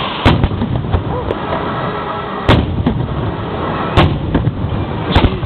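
Fireworks shells bursting close to the launch site: four loud booms spread over the few seconds, over a continuous low rumble and crackle of other bursts.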